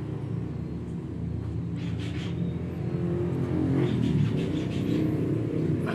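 A motor vehicle engine running steadily as a low hum, swelling and shifting in pitch near the middle as if revved or passing. A few short, higher scratchy sounds lie over it.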